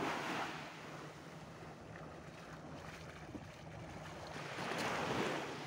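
Small waves washing up onto a sandy shore, swelling at the start and again about five seconds in, with wind on the microphone.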